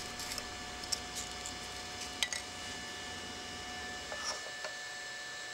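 Quiet room tone with a steady thin electrical whine, broken by a few soft, faint clicks.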